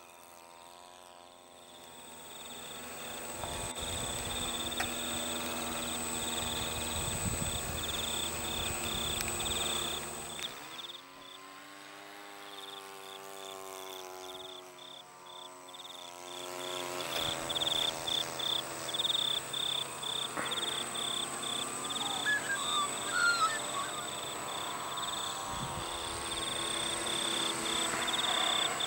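Turnigy Micro Quad quadcopter flying, its motors and propellers humming on several pitches that rise and fall as the throttle changes. Over this, insects chirp in a fast, even pulsing rhythm that grows louder in the second half.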